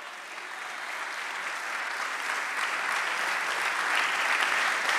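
Congregation applauding, the clapping growing steadily louder.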